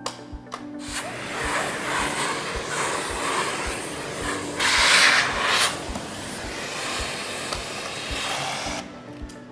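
Miele Blizzard CX1 bagless canister vacuum running with its airflow rushing. The sound starts about a second in, gets louder for about a second in the middle, and stops near the end, over background music with a steady beat.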